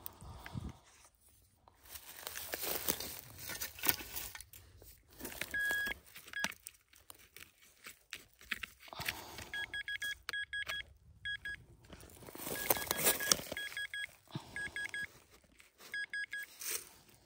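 Metal detector giving clusters of short, repeated beeps on one steady pitch, the signal of a metal target under the coil. Bursts of rustling and scraping noise come between the beeps.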